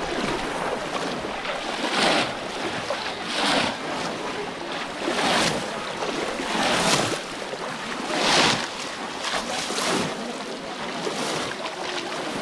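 Shallow pond water splashing and sloshing around people wading and fishing, with a louder surge of splashing about every one and a half seconds.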